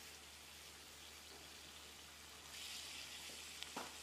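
Grated beetroot masala with water added cooking in a steel kadai, a faint sizzle that grows a little louder about two and a half seconds in, with a couple of small clicks near the end.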